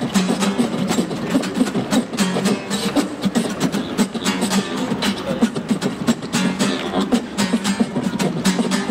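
Live voice percussion (beatboxing) into a microphone, a fast steady rhythm of mouth-made drum hits, over a strummed acoustic guitar.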